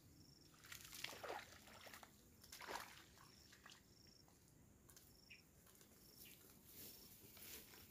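Near silence in a swamp: an insect's short high chirps repeat irregularly, and two faint swishes come about a second and nearly three seconds in.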